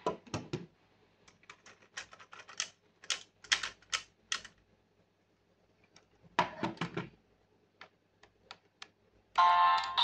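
Hard plastic clicks and clacks of the DX Fever Slot Raise Buckle toy and its Desire Driver belt being handled, in short irregular clusters. Near the end the toy's electronic sound effects and music start up loudly.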